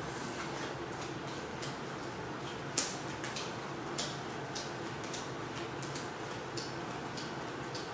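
Playing cards being dealt one at a time onto a wooden table: a few soft, irregular clicks and snaps as cards are pulled from the deck and set down, the sharpest about three seconds in, over a steady background hiss.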